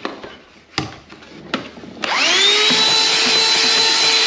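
A couple of sharp clicks, then about two seconds in a small electric motor spins up quickly and runs at a steady speed with a steady whine.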